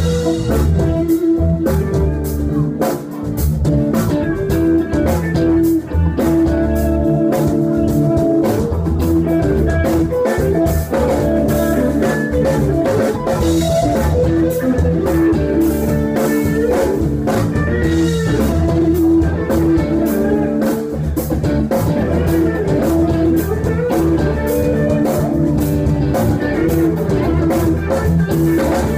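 Live blues-rock band playing: a Stratocaster-style electric guitar riff over bass guitar and a drum kit keeping a steady beat.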